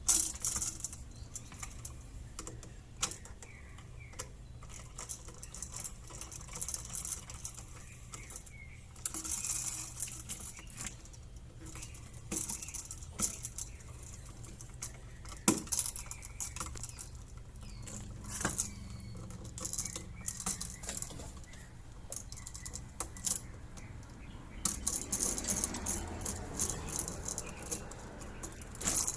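Irregular small clicks, taps and light metallic rattles of hand work on electrical receptacles: wires, terminal screws and a screwdriver being handled as the outlets are wired.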